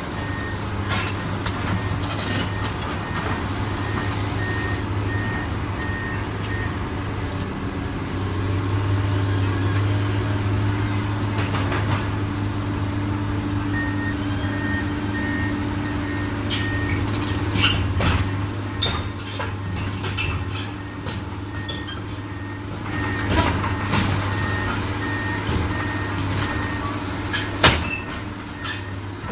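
Heavy diesel machinery loading an excavator onto a truck trailer. A diesel engine runs steadily and swells for a few seconds about a third of the way in. A high warning alarm beeps about twice a second in several spells, and sharp metal clanks and knocks come in the second half.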